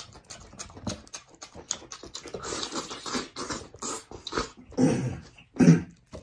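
Close-up eating sounds of a man working through a braised sheep's head by hand: rapid wet lip smacks and chewing clicks, a stretch of sucking and slurping as he sucks sauce and meat off his fingers, and two short throaty noises near the end.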